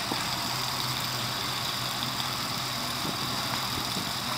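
Boat engine idling steadily, a low even hum.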